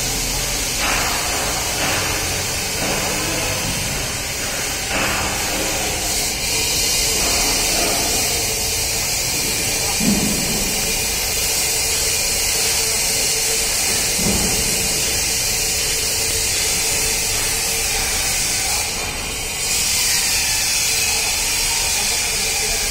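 A steady hissing noise, with a few knocks in the first five seconds; the hiss drops away for a moment near the end.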